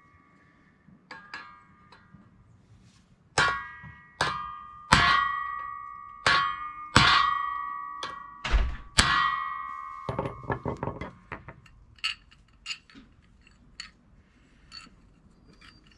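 Hammer blows on a steel suspension clevis, driving out a pressed-in bolt: about a dozen hard strikes, each ringing metallically, then a run of lighter, quicker taps that fades away.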